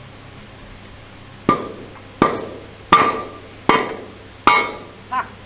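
Five hammer blows on steel, about three-quarters of a second apart, each ringing briefly. They are driving a jammed grease-seal cup off the tapered bearing of a 37 mm turret gun mount from a Grant tank.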